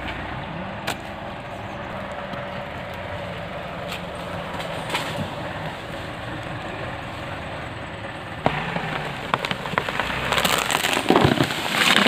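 Tractor engine running steadily. From about two-thirds in, a run of sharp snaps and crackling, loudest near the end, as branches and brush break under the felled tree pulled by the tractor.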